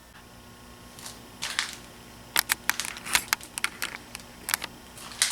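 Irregular sharp clicks and clacks of small tools or metal parts being handled at a lathe, coming thicker from about halfway through, over a faint steady hum.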